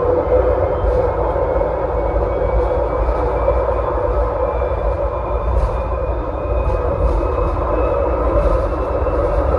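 Suzhou New District Line 1 tram running along the track, heard from inside its cab: a steady rumble of wheels on rail and running gear, with a faint whine slowly rising in pitch.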